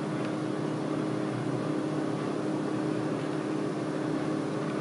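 A steady machine hum made of several held tones, unchanging throughout.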